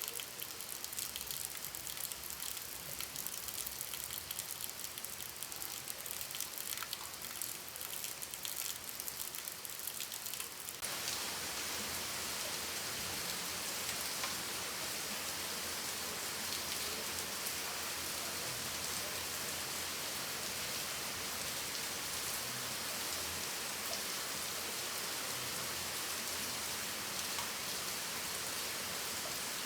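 Rain falling, with individual drops audible at first; about eleven seconds in it changes abruptly to a steadier, denser and slightly louder downpour.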